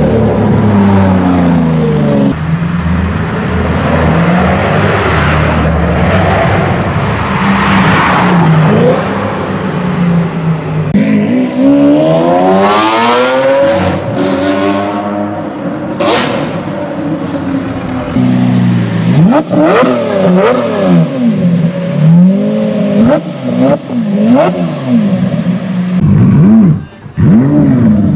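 Sports car engines revving and accelerating in several short clips one after another, the engine note rising and falling, with a run of quick throttle blips in the last third.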